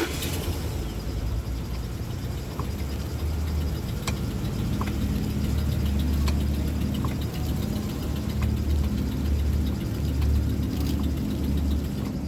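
2006 Ford F150's engine idling steadily just after being started, with a few light clicks now and then.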